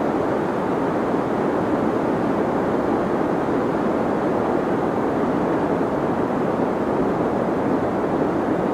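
Steady deep white noise: an even hiss with its weight in the low and middle range and little treble, holding the same level without any change.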